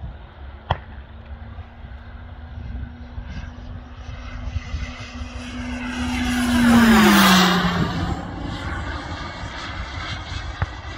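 Carf Ultra Flash Evo turbine-powered model jet making a fly-by: a rushing sound swells to its loudest about seven seconds in, its steady hum dropping in pitch as it passes, then fades away. A single sharp click comes near the start.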